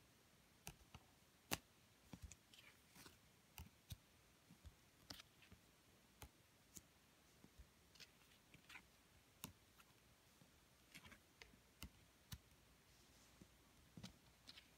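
A tarot deck of card stock being flipped through by hand: faint, irregular clicks and soft swishes as cards are slid off the deck and against each other.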